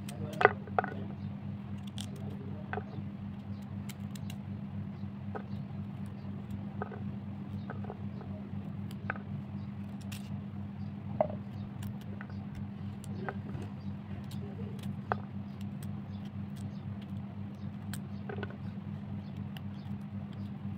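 Kitchen knife slicing through a carrot held in the hand, with scattered sharp clicks as the blade cuts through and pieces drop onto a ceramic plate, over a steady low hum.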